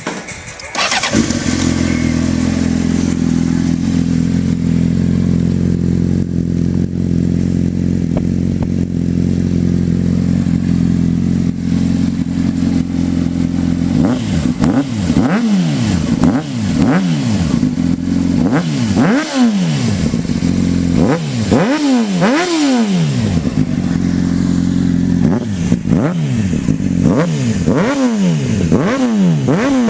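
2004 Honda CBR600RR inline-four running through a Jardine RT-One aftermarket exhaust: it idles steadily from about a second in, then about halfway through it is blipped repeatedly, each rev rising sharply and falling back to idle.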